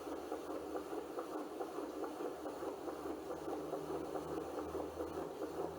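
Fetal heartbeat recorded with an Angel Sounds fetal Doppler, played back through a computer speaker: a fast, regular whooshing pulse over a steady hiss.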